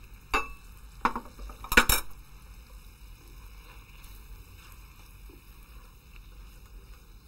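A metal spoon clinking against the pan and spice dish a few times in the first two seconds, the last knock the loudest; after that only faint background noise while the chicken is stirred with a silicone spatula.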